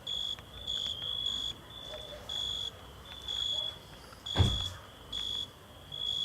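Night insects chirping in short, high-pitched bursts, repeating about once or twice a second. A single short thump comes about four seconds in and is the loudest sound.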